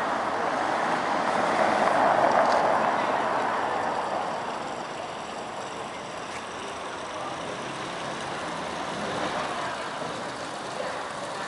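A motor vehicle passing, loudest about two seconds in and then fading into a steady wash of town traffic noise.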